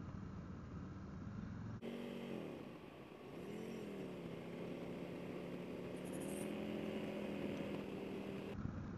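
Harley-Davidson Road King Special V-twin with Vance & Hines slip-on exhausts, heard while riding. The engine note drops and recovers twice about two to three seconds in as the bike slows and accelerates again, then holds a steady pitch. The sound changes abruptly about two seconds in and again near the end.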